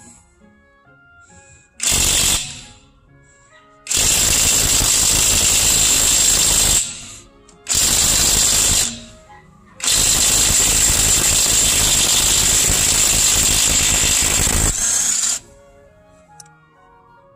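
Cordless 1/2-inch impact wrench hammering on a car wheel's lug nut in four loud bursts: a short one about two seconds in, two lasting about three and one seconds, then a longest run of about five and a half seconds.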